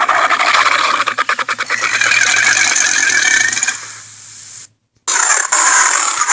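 Acrocanthosaurus dinosaur sound effect: a long raspy roar with a rattling stretch in the middle, trailing off about four seconds in; after a brief silence another rasping call begins.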